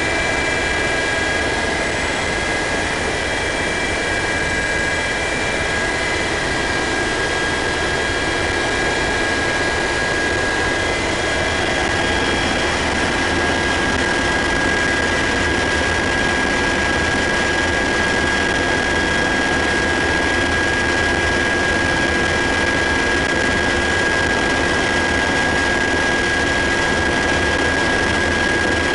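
UH-60 Black Hawk helicopter in cruise flight, heard from inside the cabin: the twin turboshaft engines and rotors make a loud, steady drone with a constant high-pitched whine over it.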